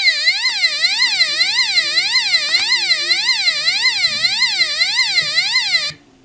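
UM3561A siren-sound generator chip driving a small buzzer: a buzzy electronic siren sweeping rapidly up and down in pitch, about three sweeps a second, that cuts off suddenly near the end.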